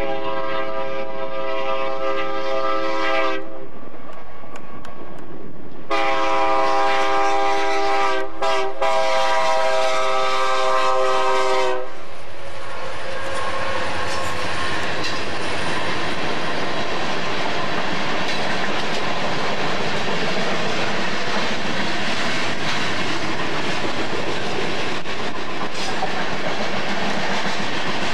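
BNSF diesel locomotive's air horn sounding two long blasts, then a short one and a long one, the grade-crossing signal. The locomotive then passes close by, and a long string of coal hopper cars rolls past with a steady rumble and wheel clickety-clack.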